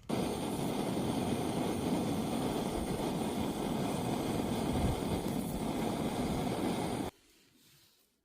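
Portable camping gas stove burner running at a steady full flame, a constant hiss that stops abruptly about seven seconds in.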